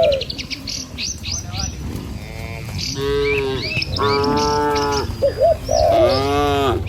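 A herd of cattle mooing: three long calls, one about three seconds in, a longer one about a second later and another near the end, over a steady low rumble. Birds chirp in quick high notes during the first second and a half.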